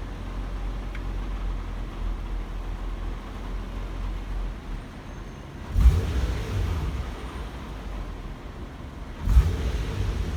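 Infiniti G37's 3.7-litre V6 idling in park with an exhaust rattle at low rpm, which comes in two sudden louder bursts about six and nine seconds in. The owner traced the rattle to faulty catalytic converters.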